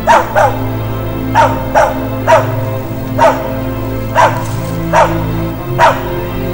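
A hunting dog barking repeatedly, about nine loud barks at uneven intervals, over background music of steady, sustained tones.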